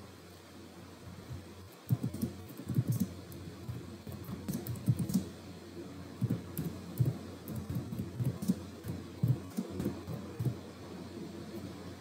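Typing on a computer keyboard: irregular runs of dull key taps with a few sharper clicks, starting about two seconds in.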